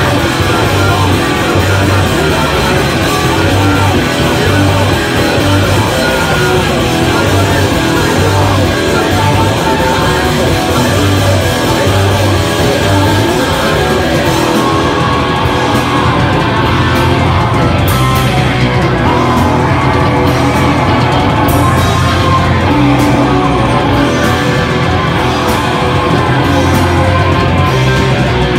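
A hardcore punk band playing loud and fast live: distorted guitar, bass and drums, with a vocalist screaming and yelling into the microphone. From about halfway, sharp evenly spaced drum hits come through more clearly.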